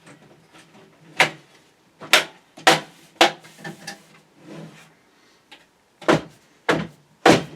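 Sharp clicks and knocks of parts being pushed and snapped into a computer case's drive bay, about seven loud ones in uneven groups with quieter handling noise between.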